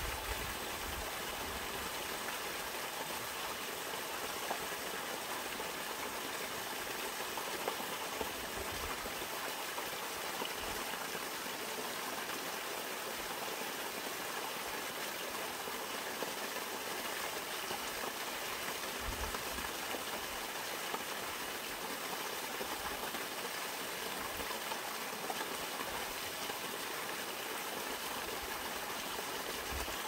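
Mountain stream water splashing steadily down a small rocky cascade into a pool, an even rushing sound that does not let up.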